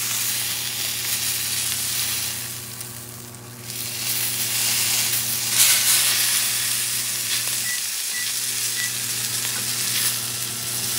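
Kangaroo loin searing in butter in a very hot, smoking pan, sizzling steadily as it is turned with tongs. The sizzle dips quieter for about a second around three seconds in.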